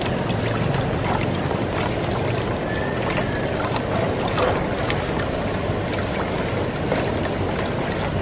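Steady rushing and churning of water in a fish holding tank, with a constant low hum underneath and a few faint clicks.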